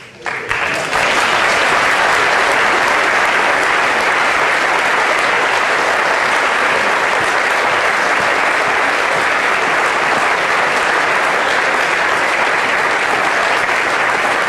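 Audience applauding: the clapping sets in abruptly, builds to full strength within about a second, then holds steady and loud.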